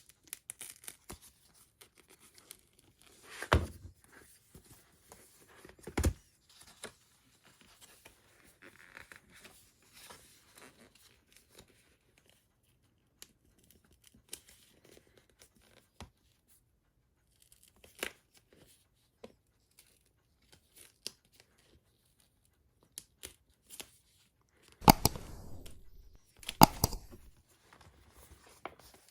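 A thin paper wrap-around slip being peeled away from glue spots on a cardboard slipcase. Faint rustling and small crackles of paper tearing free, with louder tearing sounds a few seconds in and again near the end.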